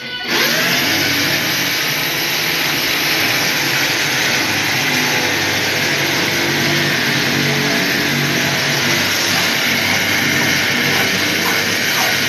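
Loud, steady running of an engine-driven machine: an even noise over a low hum that holds level throughout, starting abruptly right at the beginning.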